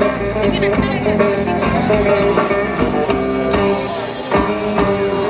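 Indian fusion rock band playing live: an instrumental passage with guitar to the fore.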